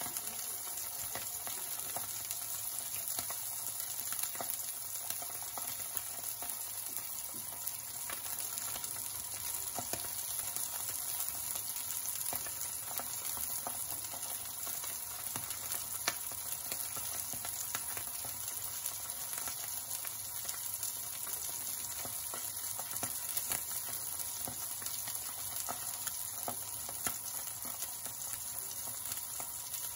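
Mackerel fillets frying skin-side down in hot oil in a pan: a steady sizzle with small crackles and pops throughout.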